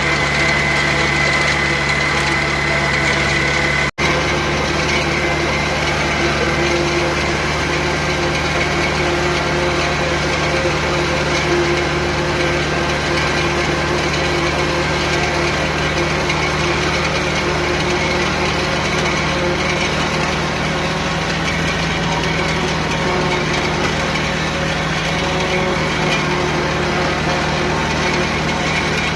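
Farm tractor engine running steadily, with a steady higher mechanical whine over it. It drops out for an instant about four seconds in, then carries on unchanged.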